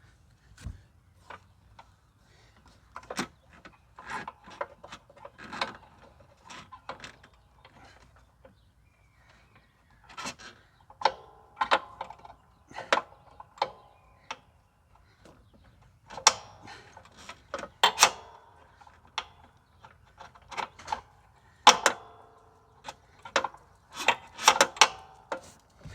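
Irregular metal clinks, knocks and rattles of parts and tools being handled while working on a mower's belt tensioner and blade-engage cable, with bunches of sharper ringing hits.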